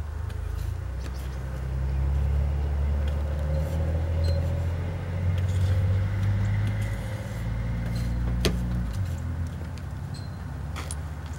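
A motor vehicle engine running, a low rumble that shifts in pitch a few times and fades about nine seconds in. Light scattered taps and scrapes of a snow brush on a car windshield sound over it.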